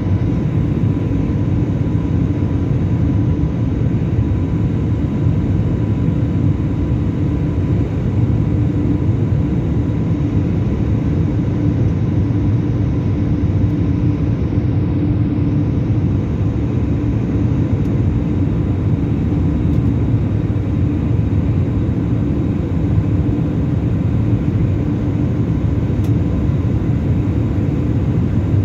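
Steady cabin noise of a jet airliner climbing after take-off: jet engine and rushing airflow heard through the fuselage, deep and even, with a faint steady whine.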